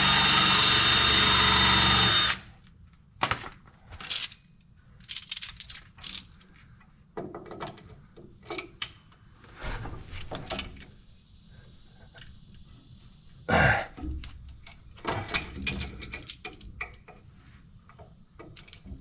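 Electric drill running for about two seconds, drilling at a stuck bleeder screw in a drum-brake wheel cylinder, then stops. Scattered clicks and clanks of tools on metal follow.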